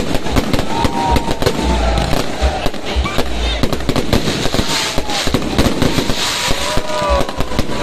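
Fireworks display going off continuously: a dense, rapid crackle of bangs layered over deep booms.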